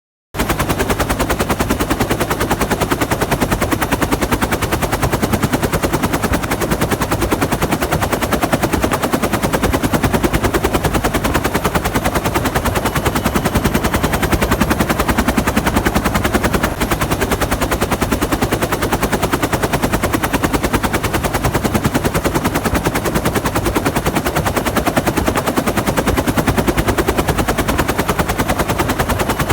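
Bell UH-1 Huey helicopter with its engine at full power and its two-bladed main rotor turning at flat pitch: a loud, steady, rapid chop of the blades that does not change.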